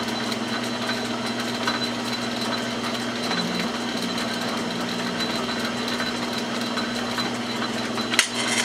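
Metal lathe running steadily, spinning a rifle barrel during single-point thread cutting at the muzzle, with a constant hum. A single sharp click about eight seconds in.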